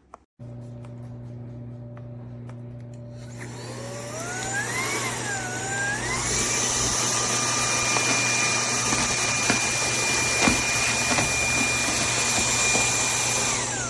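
UNINELL UV3 cordless stick vacuum's motor spinning up about three seconds in, its whine climbing and wavering before settling into a steady high whine with rushing airflow. The motor winds down just before the end.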